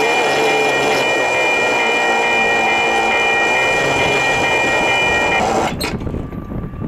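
Approaching diesel freight train's horn sounding one long, steady blast over a loud rushing noise, both cutting off abruptly near the end.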